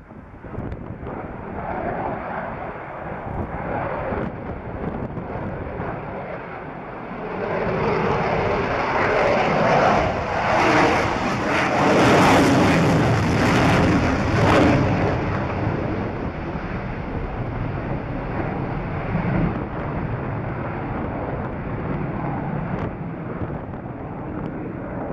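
Boeing F/A-18F Super Hornet's two General Electric F414 turbofans, heard from the ground as the jet flies a display pass. The rushing jet noise builds about seven seconds in and is loudest midway as the jet passes overhead. It then eases as the jet flies away.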